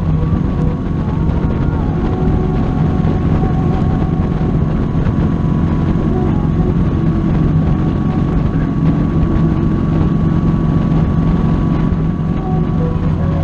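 Motorcycle engine running steadily at cruising speed, with wind and road noise over it and a thin steady whine.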